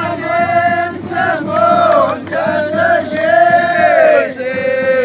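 A group of men singing a chanted greeting song together in unison, in long held notes that bend and fall at the end of each phrase, with short breaths between phrases.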